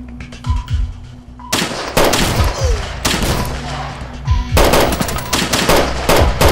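Rapid automatic rifle fire, dense from about a second and a half in, with a short lull around four seconds before it picks up again, over background music with low booming hits.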